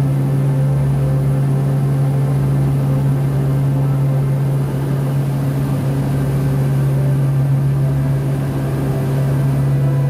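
Steady low drone of a de Havilland Canada DHC-6-300 Twin Otter's twin turboprops in cruise, heard inside the cabin, with one strong deep hum.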